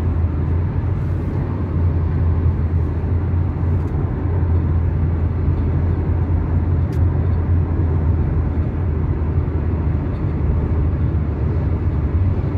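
Steady low rumble of a moving car, its tyre and engine noise heard from inside the cabin.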